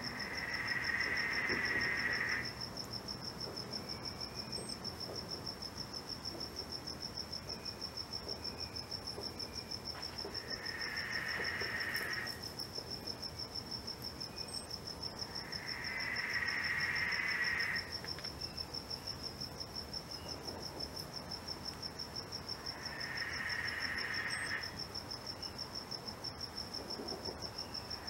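Night insects: a cricket's steady, fast-pulsed high trill, joined about every six seconds by a lower call that lasts around two seconds.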